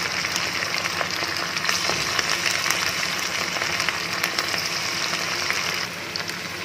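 Masala-coated chicken 65 pieces deep-frying in hot oil in a kadai. The oil gives a steady sizzling hiss dense with small crackles and pops, easing slightly near the end.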